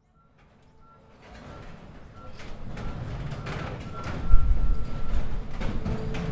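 Heavy scrap-metal machinery starting up and working: a rumble that builds after the first second, with scattered metal clanks and a heavy low thump about four seconds in. A short high beep repeats on and off through it.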